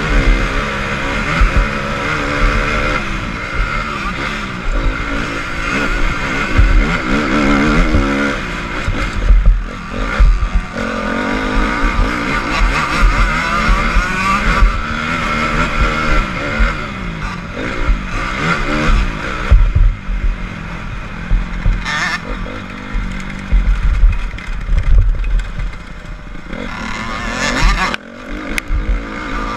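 Honda CRF250 motocross bike's four-stroke single-cylinder engine revving up and falling back again and again through the gears as it is ridden hard on a dirt track, heard from the rider's helmet with wind buffeting the microphone.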